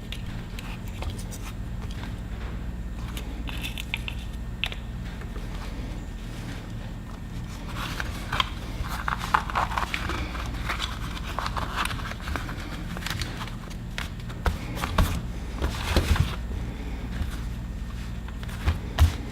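Tool packaging and a tool being handled: crinkling and scraping with scattered clicks, a busier patch of crinkling about halfway through, and a few sharp knocks near the end, over a steady low hum.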